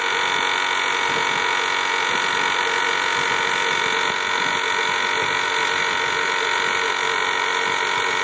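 Homemade waste-oil burner with high-pressure air blowing through it, a steady hiss with a whining hum, as a butane blowtorch is held at its nozzle and the oil is just starting to come through.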